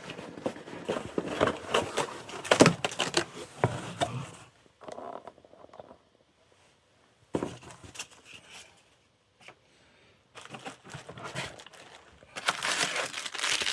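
Rifle packaging being opened and handled: a run of clicks and knocks, two short pauses of near silence, then plastic wrapping crinkling near the end.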